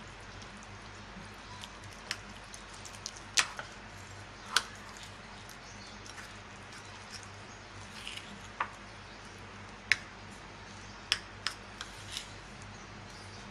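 A spoon stirring flour and water into dough in a bowl, with irregular sharp taps and clicks of the spoon against the bowl over a low steady hum.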